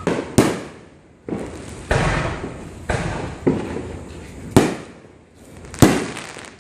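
New Year fireworks going off: a string of sharp bangs at uneven intervals, each with a short rumbling tail. The loudest come early on, about halfway through and near the end.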